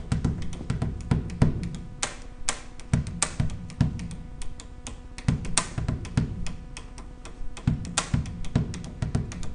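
A beat drummed by hand on a school desk: low thumps about twice a second with sharp taps in between.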